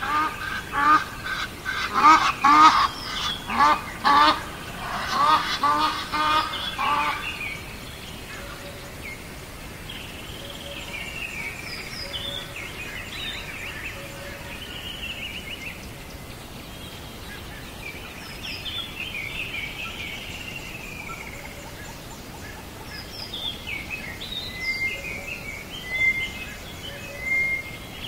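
Birds calling: a fast run of loud, repeated calls over roughly the first seven seconds, then fainter chirps and gliding calls for the rest.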